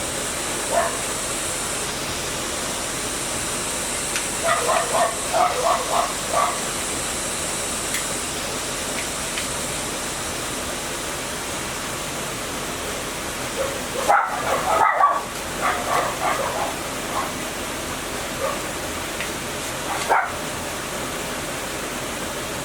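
A dog barking in short bouts, a few barks about 5 seconds in, a longer run around 14 seconds in and one more near 20 seconds, over a steady background hiss.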